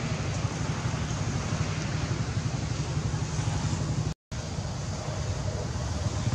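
Steady outdoor background noise: a low rumble under an even hiss, with a brief dropout about four seconds in.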